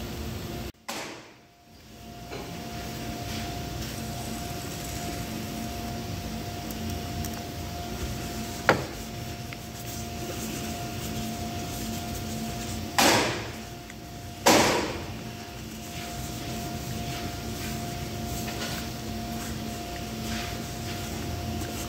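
Steady workshop machine hum, with handling noise as a pneumatic impact wrench is wiped and turned over by hand. A sharp click comes near the middle, and two short noisy bursts follow a few seconds later, about a second and a half apart.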